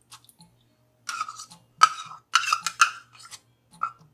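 Kitchen utensil clinking and scraping against a dish or container in a quick irregular run of sharp strokes, as tomato puree is added to the sauce ingredients.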